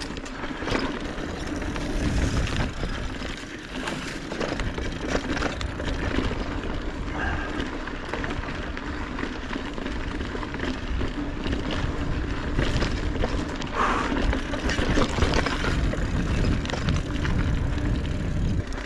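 Mountain bike ridden along a dirt trail: tyres rolling over the ground with frequent knocks and rattles from the bike, and wind rumbling on the microphone.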